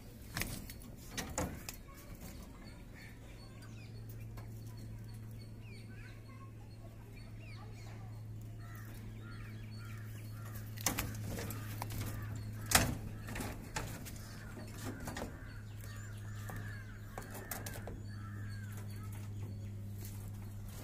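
Birds calling over a steady low hum that sets in a few seconds in, with a few sharp knocks, the loudest about 13 seconds in.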